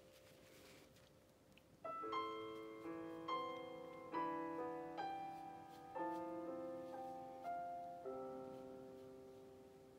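Background piano music: after a quiet start, a slow phrase of single notes and chords begins about two seconds in, one struck roughly every second and each left to fade, ending on a long ringing chord.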